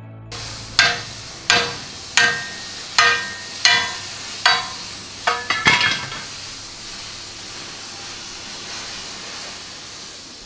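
Hammer blows on a freshly flame-cut piece of Jagdpanther steel hull armour plate: about nine sharp, ringing metal strikes, the last few in quick succession, over a steady hiss that carries on after the blows stop.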